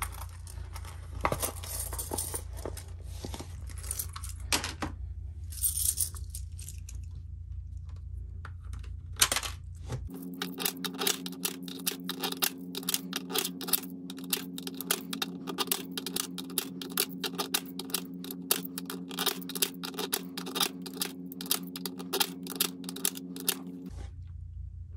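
Loose coins clinking and clicking as change is handled and dropped into a coin drawer. The clicks are scattered at first. From about ten seconds in they come much faster and closer together over a steady low hum.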